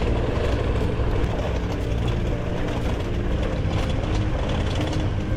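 KTM adventure motorcycle engine running steadily as the bike rides a rough, rocky dirt trail, with scattered clicks and rattles over the ground.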